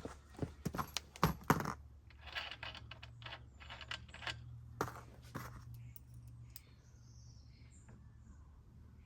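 Small metal parts clicking and clinking as an M5 Allen-key bolt and washer are handled and threaded into a bike frame's rack-mount hole. A quick run of sharp clicks in the first two seconds, scattered clinks up to about halfway, then only a faint low hum.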